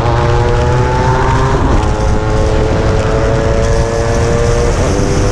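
Yamaha RX135's two-stroke single-cylinder engine, fully ported, with a racing CDI, a power chamber expansion exhaust and an aftermarket cylinder kit. It is held at high revs that climb slowly, with a brief dip in revs about a second and a half in and a drop near the end.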